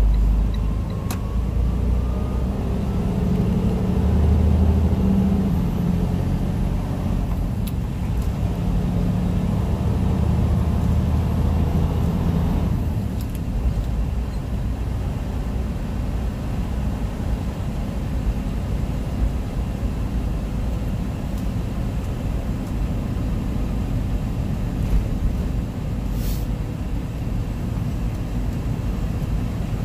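Semi truck's diesel engine and road rumble heard inside the cab while driving with a heavy load. The engine pulls with shifting pitch for the first dozen seconds, then eases off to a steady rumble. A short click comes near the end.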